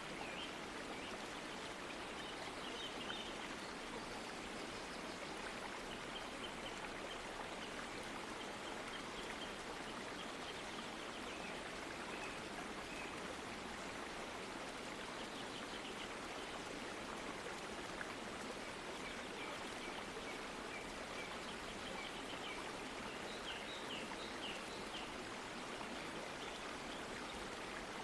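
Waterfall pouring and splashing over rocks: a steady, even rush of falling water that does not change.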